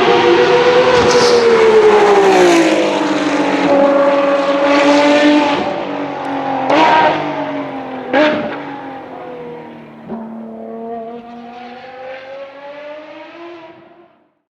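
Ferrari race car engine on track, its pitch falling and then holding steady, with two sharp revving blips about halfway through, then fading away as the car drives off until the sound cuts off just before the end.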